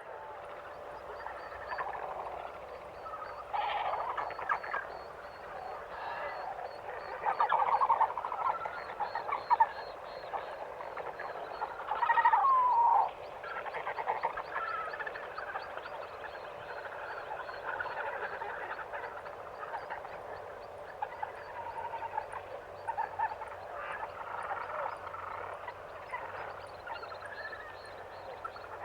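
African jungle morning ambience: many birds calling and chattering over one another, with a fast, steady high ticking underneath. The loudest calls come about 8 and 12 seconds in.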